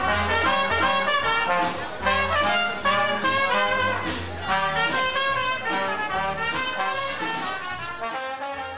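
Jazz band playing, a trumpet leading over a drum kit's cymbal beat of about two strokes a second; the music begins to fade near the end.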